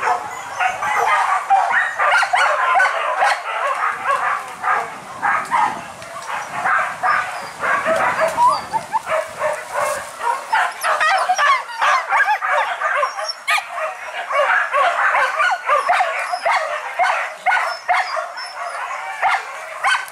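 A pack of leashed hunting dogs barking and yelping, many at once, in a dense overlapping chorus without a break.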